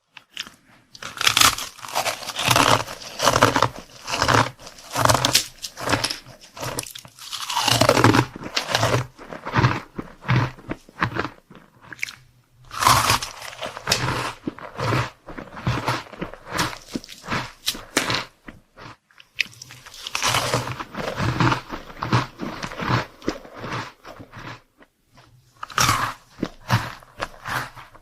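Close-miked chewing of crunchy chocolate sweets: bouts of loud crunching bites broken by short pauses.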